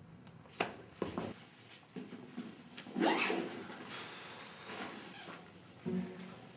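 Faint handling noises in a quiet room: a couple of small clicks, then a short rustling scrape about three seconds in.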